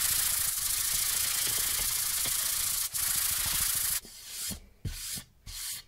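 Sandpaper on a wooden sanding block rubbed by hand over the face of a wooden cutting board: a continuous scratchy hiss for about four seconds with a brief break near three seconds. The steady sanding then stops, and a few short separate rubbing scrapes follow.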